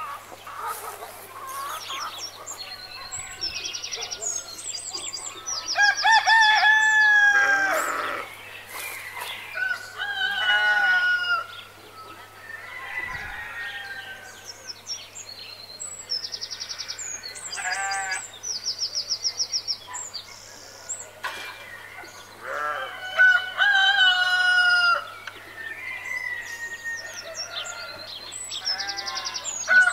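Chickens calling: roosters crowing several times, each crow one to two seconds long, with clucking and quick high chirps between the crows.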